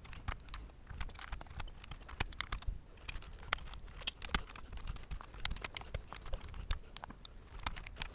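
Keycaps being pulled off a mechanical keyboard: a quick, irregular run of plastic clicks and clacks as the caps come off the switches and are set down.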